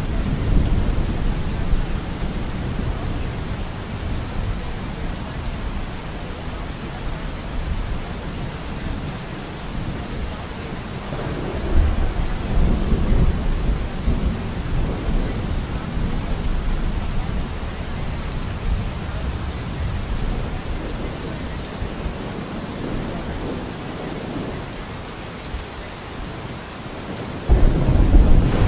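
Steady heavy rain with rolling thunder. The rumble swells about twelve seconds in, and a sudden loud thunderclap breaks near the end.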